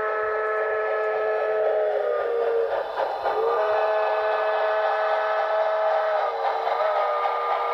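Recorded multi-chime steam whistle from an HO-scale locomotive's Paragon4 sound decoder, played through the model's small speaker over steady running noise. It sounds in long blasts, breaking off briefly about three seconds in and dropping slightly in pitch about six seconds in.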